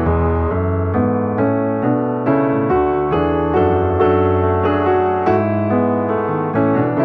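Slow, gentle piano music: single notes struck one after another over held bass notes.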